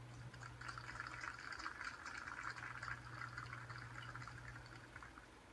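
Faint applause from a crowd, re-recorded through a television speaker, starting about half a second in and dying away near the end, over a steady low hum.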